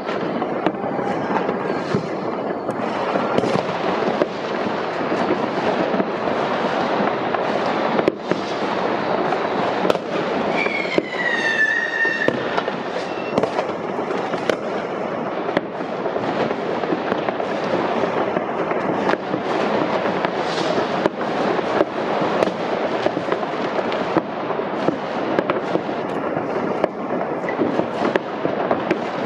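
Dense, unbroken barrage of fireworks: many overlapping bangs and crackles. About eleven seconds in, a whistle falling in pitch rises above them.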